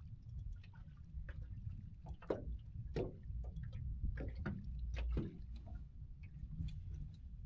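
Small waves slapping and lapping irregularly against the side of a small fishing boat, with a steady low wind rumble on the microphone.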